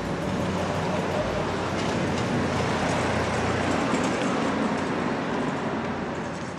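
Street traffic noise: a steady rush of passing vehicles that fades out near the end.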